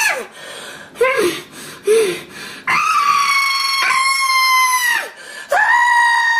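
A high-pitched voice screaming in long held cries, three of them, each falling in pitch as it breaks off. Short lower yelps come between the first two.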